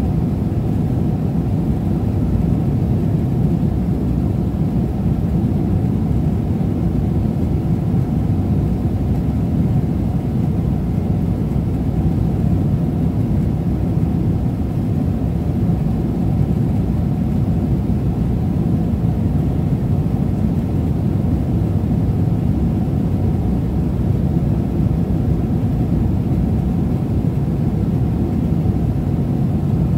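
Steady cabin noise of an airliner in flight: a constant low rush of engines and airflow that does not change.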